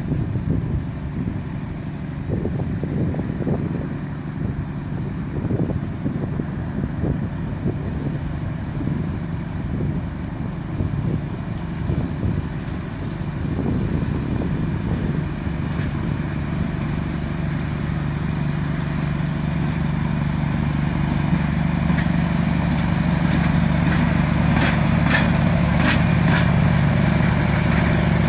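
Diesel engine of a VR Class Dv12 locomotive running, its low steady note growing louder over the second half as the locomotive comes closer. Near the end a few short high-pitched squeals from the wheels on the rails.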